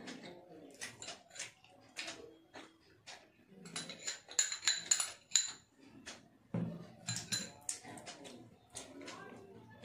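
A glass bowl clinking and ringing several times against a plate as dal is poured from it onto rice, loudest about four to five and a half seconds in. Soft clicks and taps from hand-eating are scattered around it.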